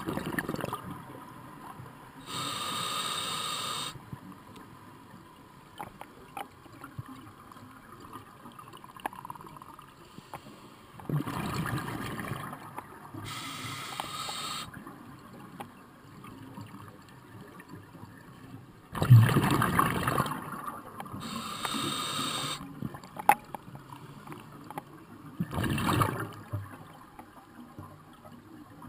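Scuba diver breathing through a regulator: three bursts of exhaled bubbles, each followed a second or two later by the hiss of an inhaled breath, with quieter gurgling between.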